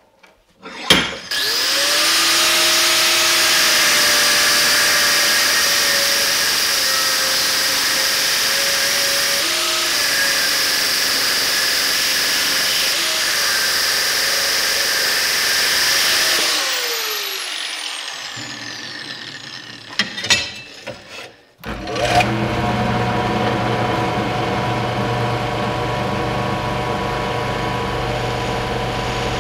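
A bench vise handle clanks as the blade is tightened in, then an angle grinder starts and runs, its cut-off wheel cutting into the steel cleaver blade, and winds down with a falling whine. After a few knocks, a drill press starts and runs steadily, drilling into the cleaver's steel tang.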